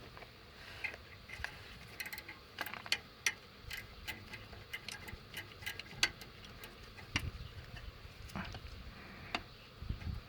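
Irregular sharp clicks and light metallic ticks from hand tools working on nuts and bolts.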